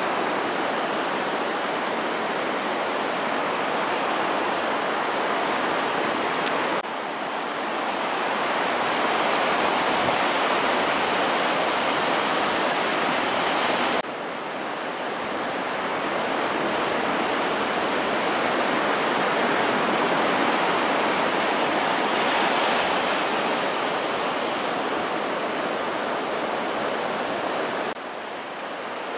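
Small waves breaking and surf rushing up the beach: a steady wash of noise that drops abruptly in loudness three times.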